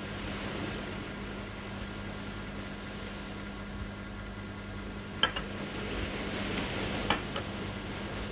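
Steady electrical hum and hiss, with two sharp glassy clinks about five and seven seconds in, each followed by a lighter one, as laboratory glassware is set down and handled.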